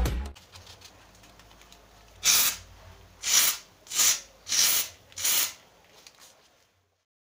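Aerosol foam can fired from a homemade cardboard web shooter: five short sprays hiss out in a row, starting about two seconds in.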